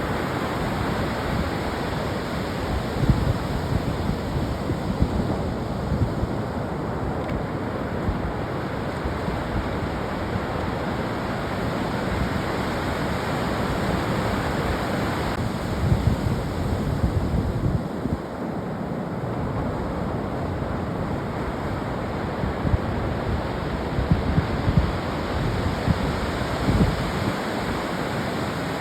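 Ocean surf washing onto a beach as a steady rushing noise. Wind buffets the microphone in low rumbling gusts now and then.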